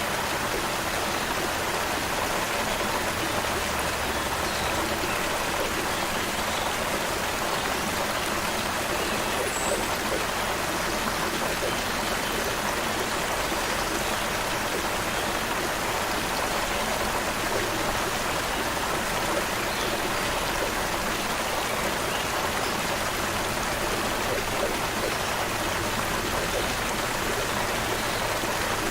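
Creek water flowing steadily: a continuous, even rushing with no pauses.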